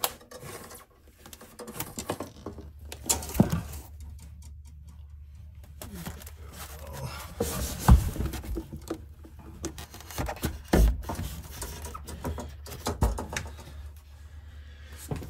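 Corrugated plastic conduit with a copper gas line inside being pushed up through a hole in a camper, rubbing and scraping against the edges, with irregular knocks and taps, a few louder ones along the way.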